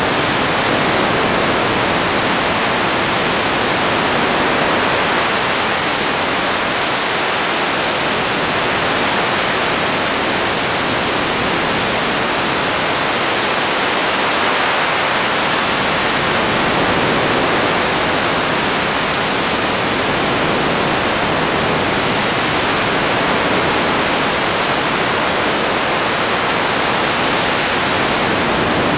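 Radio static: a steady, even hiss with no tone or voice in it.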